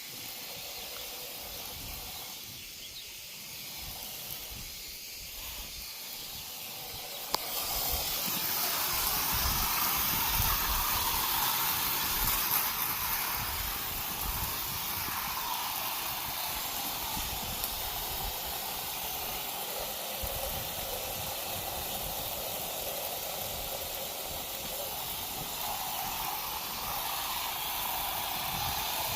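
Pressure washer spraying cleaning solution onto house siding, a steady hiss of spray. A sharp click about seven seconds in, after which the spray is louder.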